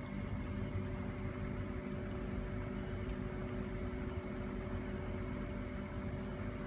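Steady low background rumble with a faint hum, with no thunderclap or other distinct event.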